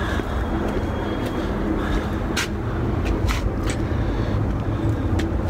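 A motor vehicle engine running steadily with a low drone, with a few short, light clicks over it.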